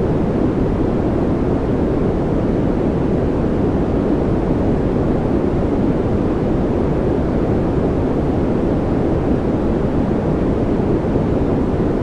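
Steady white-noise track: an even, unchanging rushing hiss weighted toward the low end, with no tones or breaks.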